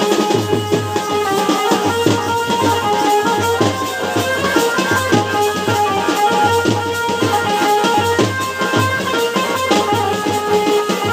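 Folk drumming: a stick-beaten strap-hung drum and a shoulder-carried barrel drum keep a fast, steady beat, with held melodic tones over it.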